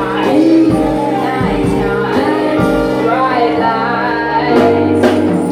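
A live band playing a funk song, with a woman singing lead over electric guitar, bass, keyboard and drums.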